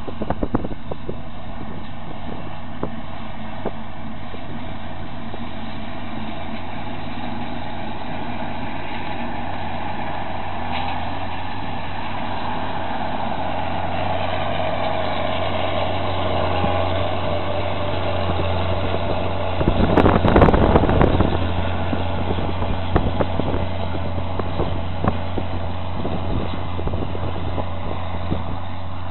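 John Deere self-propelled windrower's diesel engine running steadily while it mows alfalfa. The drone grows louder as the machine comes close past the middle, with a short burst of loud rushing noise about twenty seconds in, then eases as it moves away.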